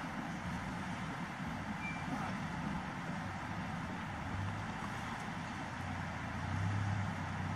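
A vehicle engine idling with a steady low hum that grows slightly louder near the end, under a constant rushing noise of flowing water.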